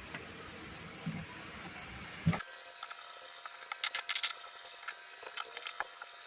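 Plastic Rubik's cube pieces being handled and snapped into place: scattered sharp clicks, with a quick cluster of them about four seconds in.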